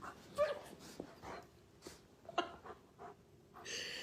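German Shepherd whining in several short, soft whimpers and grumbles.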